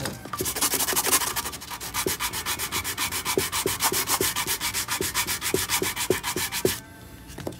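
Sanding block rubbed quickly back and forth by hand on a pine board, about five strokes a second. The sanding stops about seven seconds in.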